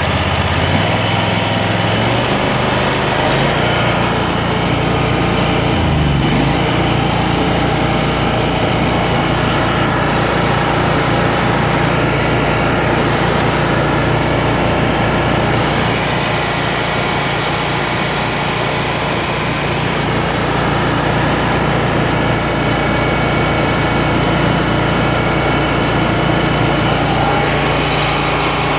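Kawasaki FX801V V-twin engine of a Kubota Z726X zero-turn mower running at high idle, pitch climbing over the first few seconds and then steady. The drive levers are held fully forward to purge air from the freshly refilled hydrostatic transaxles.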